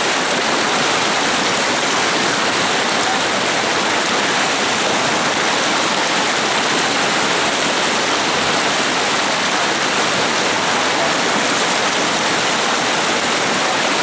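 A raging mountain river rushing, a steady loud noise of fast whitewater.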